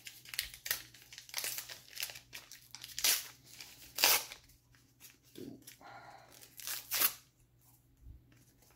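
A foil-lined baseball card pack being torn open by hand: a string of short crinkling rips, the loudest about three, four and seven seconds in.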